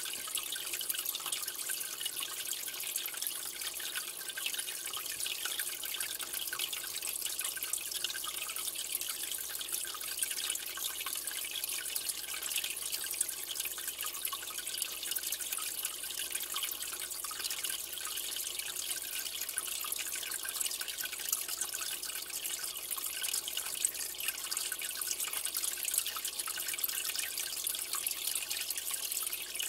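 Steady trickling and bubbling of aquarium water, an even hiss dense with fine splashes.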